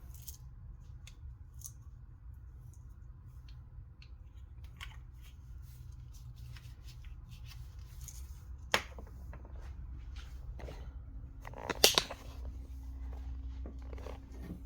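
Small clicks and crinkles of pet treat packets being opened and handled, with a sharp click about nine seconds in and a short clatter of clicks about twelve seconds in, over a low steady hum.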